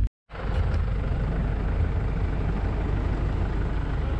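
A vehicle engine idling with a steady low rumble, after the sound cuts out briefly right at the start.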